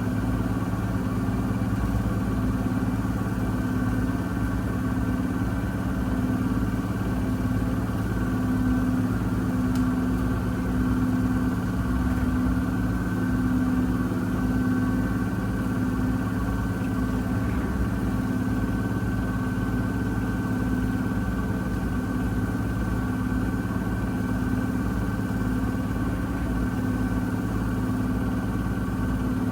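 Miele W1 Active WCA 030 washing machine with its Profi-Eco motor running steadily at speed, most likely spinning: an even motor whine with a hum that swells and fades about once a second.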